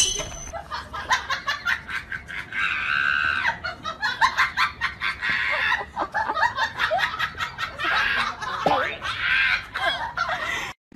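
Battery-powered crawling soldier toy running its electronic sound effects: a fast crackle of clicks mixed with shrill, squealing, laugh-like bursts.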